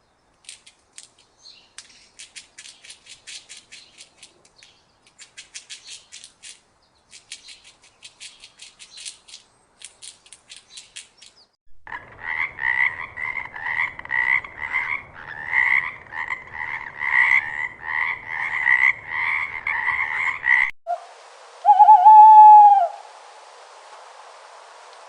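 A frog croaking rhythmically and loudly, about two croaks a second, for some eight seconds in the middle. Before it comes a run of faint, rapid clicking. Near the end there is a single short pitched call that rises and falls.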